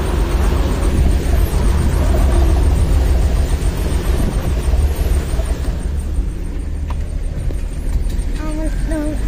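Steady low rumble of a Mahindra SUV's engine and tyres, heard from inside the cabin on a rough dirt road. A higher hiss drops away about six seconds in, and faint voices come in near the end.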